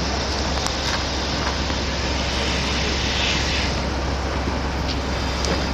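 Steady low rumble of running vehicle engines under a broad hiss, with a few faint clicks.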